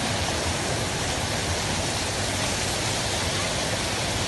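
River in flood, its brown floodwater rushing past in a steady, unbroken hiss.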